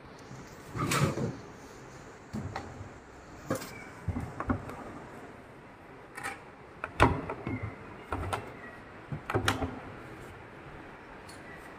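Knocks and thumps as a large PA loudspeaker cabinet is tilted and shifted by hand: a string of separate knocks, the loudest about seven seconds in.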